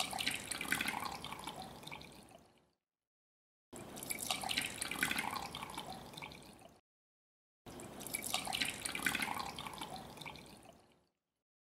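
Milky mixture poured from a ceramic jug into glass cups, splashing and trickling. There are three separate pours, each starting suddenly and tailing off over about three seconds, with complete silence between them.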